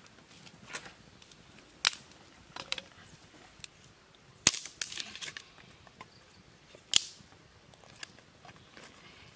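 Dry wood cracking and snapping at a small open campfire as sticks are pushed into the flames: three loud sharp cracks a couple of seconds apart, with fainter crackles between them.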